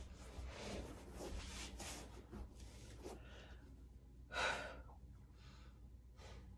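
Soft rustling of clothing and movement on a yoga mat as a person settles into a cross-legged seat, then one loud breath about four and a half seconds in, followed by a few fainter breaths.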